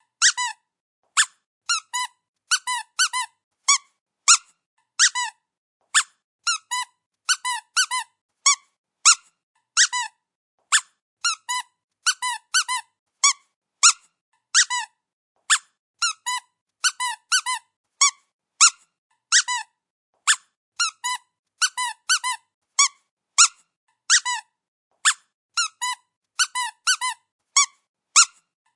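Dog's squeaky toy squeezed over and over: short, high squeaks, some single and some in quick runs of two or three, with silent gaps between them.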